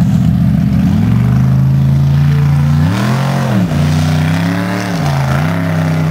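Formula Offroad buggy's 800–900 horsepower engine at full throttle on a steep sand hill-climb. The revs rise about a second in, drop sharply and recover near the middle, and dip again about five seconds in before picking up.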